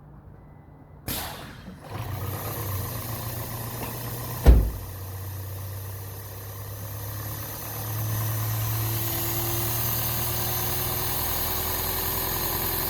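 Toyota Prius 1.5L engine being turned over by the hybrid system without catching, a steady mechanical running sound that starts about a second in and gets louder about eight seconds in. A single sharp knock comes about four and a half seconds in. The engine is not starting although spark and injector pulse are present.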